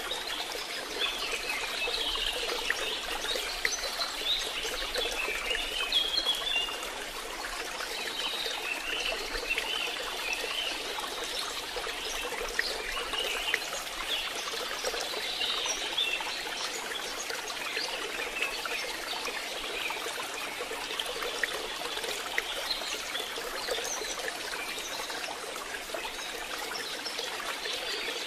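Steady rain with trickling, pouring water, with short high squeaky mews from newborn kittens scattered through it.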